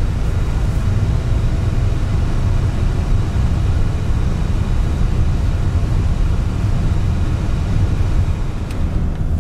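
Steady low rumble inside a moving car's cabin: engine and tyres on a snow-covered road.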